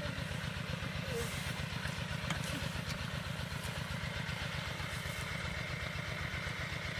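Small engine running steadily at idle with a rapid, even chugging.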